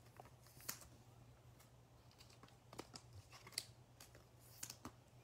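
Near silence with a handful of faint, short clicks of trading cards being slid off a stack by hand, over a low steady hum.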